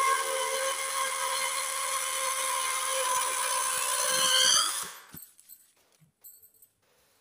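Air escaping through the stretched neck of a latex balloon, making a steady high squeal. The pitch rises just before the balloon empties, and the squeal stops about five seconds in.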